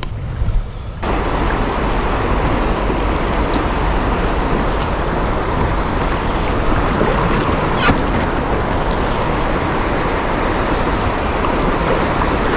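Fast river rapids rushing around a kayak: a steady, loud wash of water noise that starts suddenly about a second in, with one brief knock about eight seconds in.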